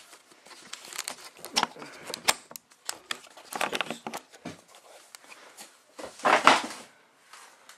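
Handling of a metal tool chest's lid: scattered clicks, knocks and rubbing, with a louder scraping rush about six and a half seconds in.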